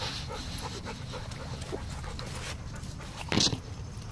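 A dog panting quickly close by, with one brief loud noise about three and a half seconds in.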